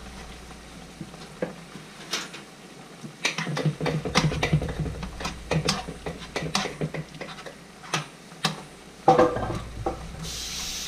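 Metal spoon stirring minced pork simmering in sauce in a stone-coated nonstick pan, with many quick clicks and scrapes of the spoon against the pan, over a low sizzle. The hiss of sizzling grows louder near the end.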